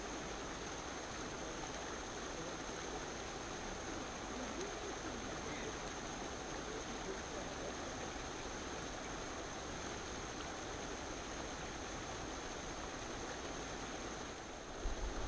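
Steady rushing outdoor ambience beside a pond, with a faint, thin, steady high whine above it. Near the end, wind buffets the microphone in low bumps.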